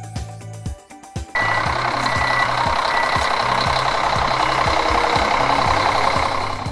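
New Holland farm tractor's diesel engine running as it pulls a disc harrow, a loud dense noise that starts abruptly about a second and a half in and cuts off at the end. Background music with a steady beat plays throughout.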